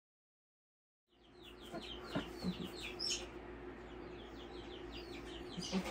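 Chickens clucking and chirping: a quick run of short falling chirps and a few low clucks over a steady low hum, starting about a second in.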